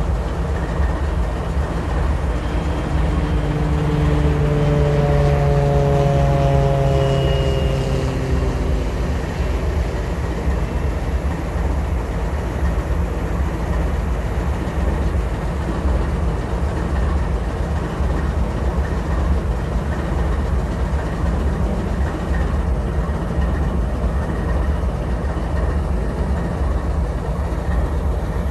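GE diesel-electric locomotives idling on a fueling siding: a steady low rumble. A few seconds in, a pitched tone with several overtones slides slowly and slightly downward over several seconds, then fades.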